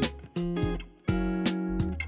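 Music: sustained chords over deep bass notes with sharp drum hits, breaking off briefly twice.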